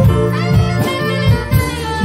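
Live jazz-fusion band playing: a saxophone sounds sustained notes over piano, electric guitar and a steady drum beat.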